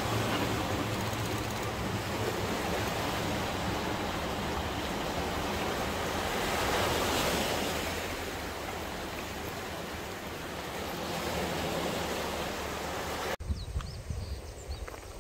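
Surf breaking and washing up a sandy beach, with a swell of louder wash about seven seconds in. Near the end it cuts off suddenly to a much quieter outdoor background with a few faint ticks.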